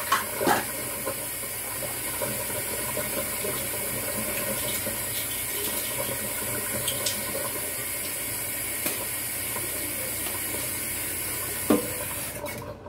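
Kitchen faucet running steadily into a plastic dish tub in a stainless steel sink. There are two light knocks in the first second and another near the end, and the water cuts off just before the end.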